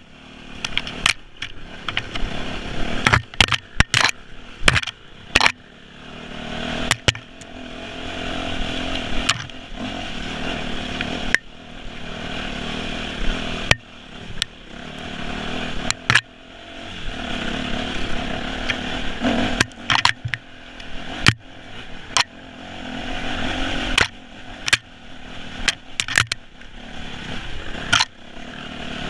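Off-road dirt bike engine revving up and easing off again and again while ridden over a rough trail, with frequent sharp knocks and clatter from the bumps.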